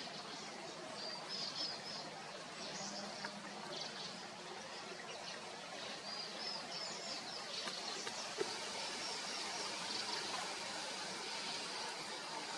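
Birds chirping in quick runs of short high notes, a run about a second in and another about six seconds in, with scattered calls after, over a steady outdoor hiss.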